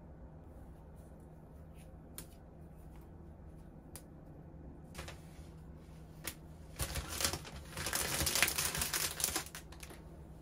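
Hands handling flowers and dry grass stems in wicker basket vases: scattered light clicks, then a few seconds of crackly rustling starting about seven seconds in.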